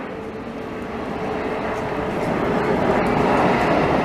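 Airliner's engines flying past: a steady rushing noise with a faint hum, growing gradually louder.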